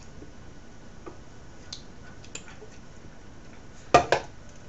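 Faint clicks of cutlery and dishes on a table, then two loud, sharp knocks close together about four seconds in.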